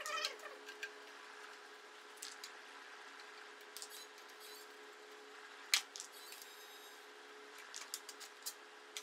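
Scattered small metallic clicks and taps of a screwdriver working the screws on a Hikvision CCTV recorder's sheet-metal case while the case is handled, with one sharper click a little past halfway and a quick run of clicks near the end as the cover is lifted off, over a faint steady hum.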